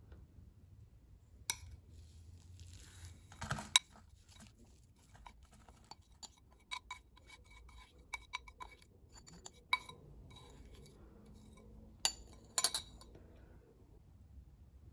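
A metal spoon scraping and clinking against a glass mixing bowl as a crumbly buttered Oreo mixture is scooped out into a metal cake pan. There are a handful of sharp clinks, the loudest about four seconds in and again near the end, with soft scraping between them.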